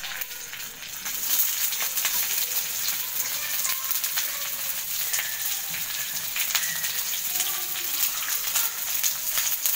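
Hot oil sizzling and crackling in a small frying pan as a bay leaf, whole spices and chopped onions fry in it. The sizzle grows louder about a second in.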